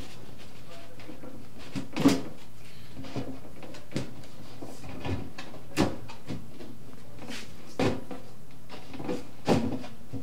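Wooden cabinet panels knocking as the back panel of a corner cabinet is pushed into its pre-cut slots: about five separate knocks roughly two seconds apart, the loudest about two seconds in.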